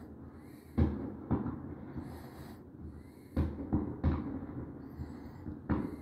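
Aerial fireworks bursting over a city: about six irregular, booming bangs, each trailing off in an echo.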